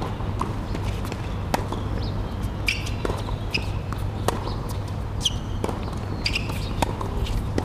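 Tennis rally on a hard court: sharp pops of racket strikes and ball bounces every half second to a second, with short high squeaks in between, over a steady low rumble.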